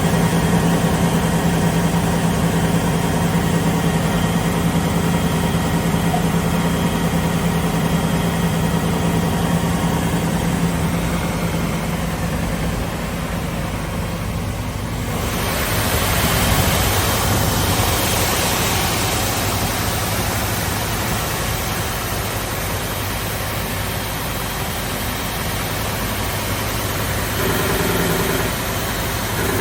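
SCM Sandya 3S wide-belt sander with an 18.5 kW sanding-unit motor running idle, with no workpiece. A steady hum runs throughout, and about halfway through a broad hiss comes in and stays.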